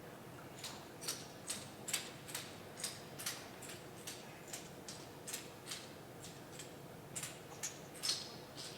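Irregular sharp clicks or taps, about two or three a second, starting a little under a second in.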